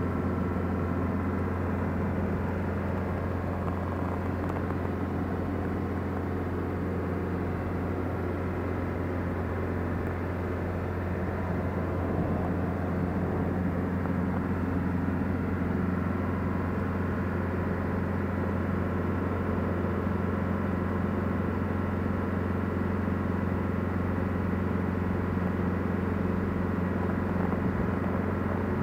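Mercedes-Benz 240D (W115) with its 2.4-litre four-cylinder diesel running at a steady cruise, heard from inside the cabin. A constant low drone blends with tyre and road noise and does not change throughout.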